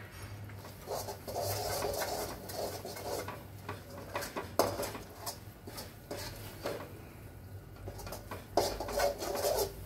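Spoon scraping and knocking in a pan as a thick coconut-jaggery candy mixture is stirred. The scrapes and knocks come irregularly, with the sharpest knock about halfway through. The mixture has cooked down far enough to gather together and come away from the pan without sticking.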